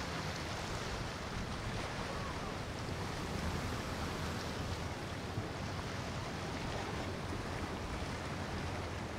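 Motorboat cruising past: the rush and splash of water from its bow wave over a steady, low engine hum.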